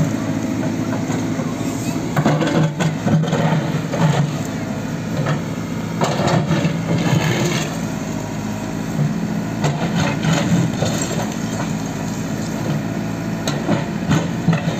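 JCB 3CX backhoe loader's diesel engine running steadily under hydraulic load as the backhoe bucket works, with bursts of scraping and clattering from broken concrete blocks and rubble.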